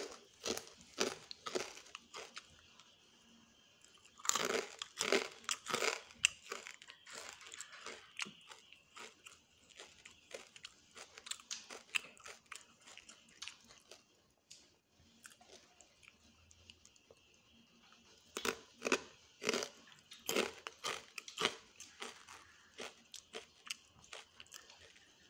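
A person chewing crisp food close to the microphone, with crunchy bites and chewing. There are two louder bouts of rapid crunching, one about four seconds in and one near the end, with quieter chewing between.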